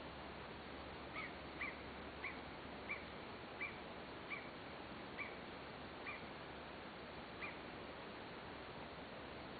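An animal calling: about nine short, high calls in a series, spaced wider apart towards the end.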